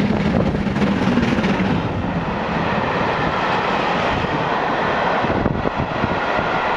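Steam-hauled passenger train passing close by at speed, loud and steady: the locomotive goes by first, with a heavier low sound in the first couple of seconds, then its coaches roll past on the rails.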